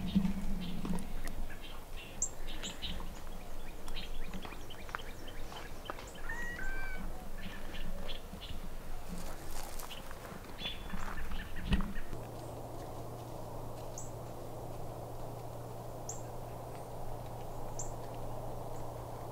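Footsteps crunching on a dry dirt trail and leaf litter, with twigs snapping, for the first twelve seconds or so, while small birds chirp now and then. About twelve seconds in the footsteps stop and a steady low hum takes over, with a few short, high bird chirps.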